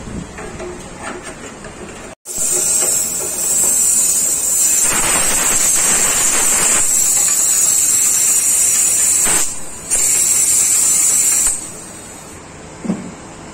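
A compressed-air nozzle hissing loudly into an empty, rusty motorcycle fuel tank. It comes as one long blast with a brief break, then stops suddenly. A short low thump follows near the end.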